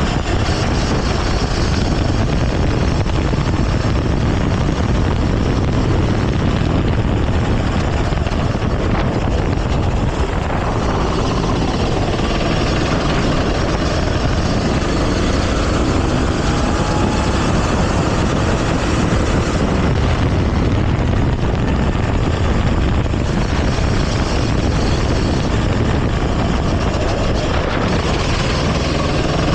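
Go-kart engine running hard in a race, heard from on board the kart. It runs continuously, with a faint rise in pitch now and then as the kart accelerates.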